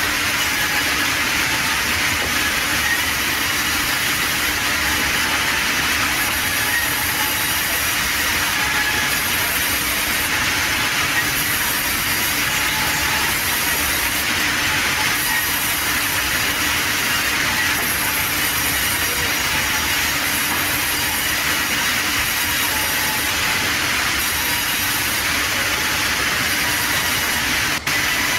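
Large sawmill band saw running and cutting through a wooden slab: a steady mechanical whirr and hiss over a constant hum, with a brief break near the end.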